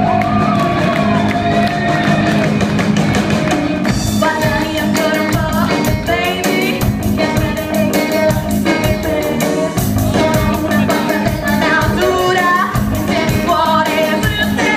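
Live rock band playing: a female lead singer over electric guitar, bass guitar and drum kit. Held notes open it, and the drums come in with the full band about four seconds in.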